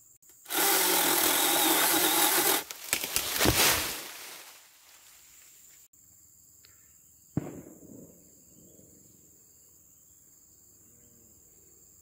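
Cordless mini chainsaw's electric motor running as it cuts through a tree branch for about two seconds, followed by crackling and snapping as the branch breaks away and falls through the leaves. A single sharp knock comes about seven seconds in.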